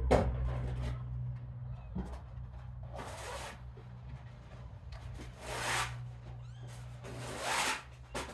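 Soft rustling in four short bursts, roughly every two seconds, over a steady low hum.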